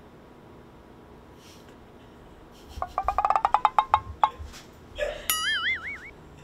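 Comic sound effects laid over the picture: a quick run of plinking ticks, about a dozen a second, then a wobbling, warbling tone that climbs for under a second.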